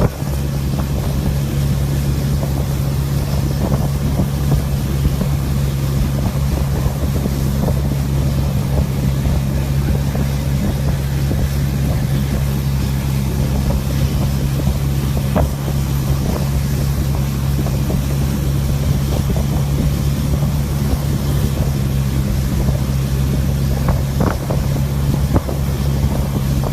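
Motorboat engine running steadily under way: a constant low drone, with wind buffeting the microphone.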